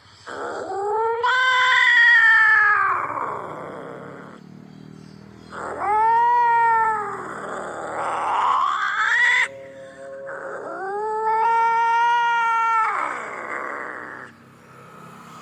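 Angry cat yowling: three long, drawn-out territorial caterwauls, each rising and then falling in pitch. A harsher rising call comes after the second. These are aggressive strange-cat calls used to frighten another cat.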